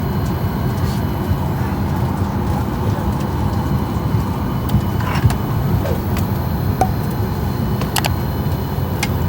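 Steady low rumble of an airliner cabin while the plane sits waiting for takeoff, with a few faint clicks about halfway through and near the end.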